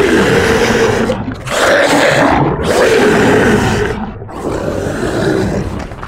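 Creature roars from a horror sound-effects library: four long roars in a row, each lasting one to two seconds, with short breaks between them.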